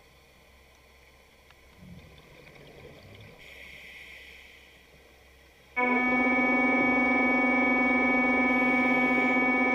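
Background music: a sustained synthesizer chord held without change. It is absent for the first six seconds or so, leaving a quiet stretch, then comes back in abruptly and holds steady.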